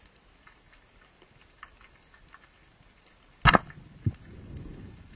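Band-powered speargun fired underwater: one sharp loud crack about three and a half seconds in, then a second, lighter click half a second later and a low watery rush. Before the shot, faint scattered ticks of the reef.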